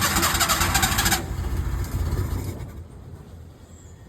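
Maruti Omni's three-cylinder petrol engine being cranked by its starter motor on a first start after years unused, a fast, even churning that cuts off about a second in. A lower engine rumble carries on for a second or so after and then fades away.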